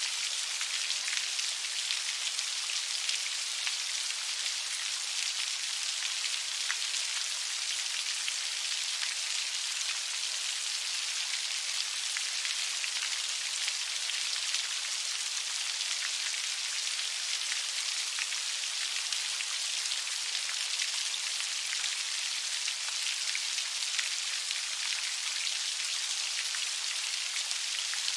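Steady heavy rain: an even hiss of falling rain with the fine patter of drops, unbroken throughout.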